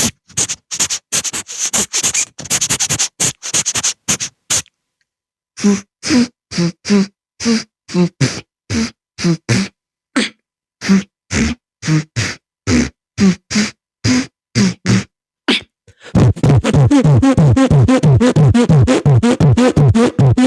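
Human beatboxing: a quick run of mouth clicks and hisses, then a pause of about a second. Next comes a steady series of short voiced pulses, about two a second, and from about 16 seconds in, a dense, rapidly pulsing throaty buzz, imitating a sound effect.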